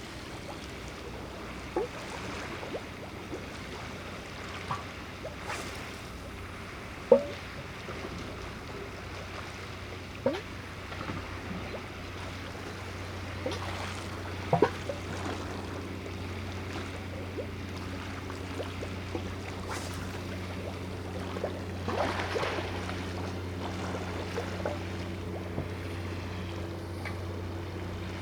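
Low, steady engine drone of a coastal container ship passing close by, growing stronger about halfway through, over wind noise on the microphone. A few sharp clicks come in the first half.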